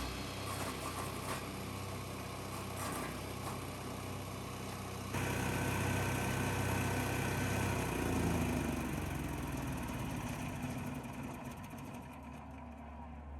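The wood chipper's 15 HP (420cc) gasoline engine running steadily, with an abrupt change in level about five seconds in. From about eight seconds it falls in pitch and fades, slowing down.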